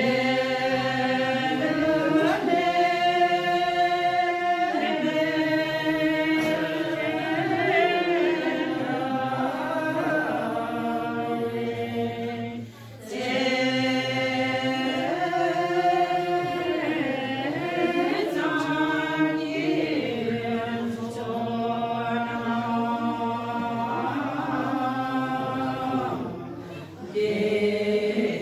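A group of women singing a Buddhist prayer together from their prayer books, in long held melodic phrases. The singing breaks off briefly about halfway through and again near the end.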